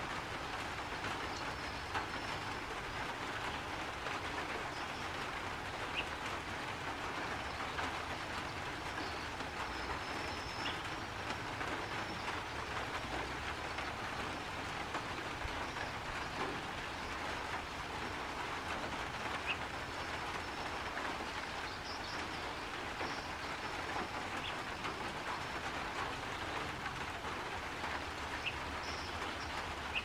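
Steady rushing outdoor background noise at an even level, with a few faint, short, high notes scattered through it.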